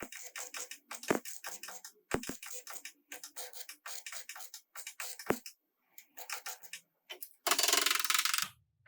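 A run of irregular light taps and clicks, a few ringing briefly. Near the end comes about a second of loud rushing noise that cuts off suddenly.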